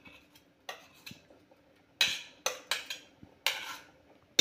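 A spoon scraping and knocking against a steel mixer-grinder jar as coarsely ground chickpea paste is emptied into a pressure cooker: a series of short metal scrapes and clicks, the loudest about two seconds in and again near the end.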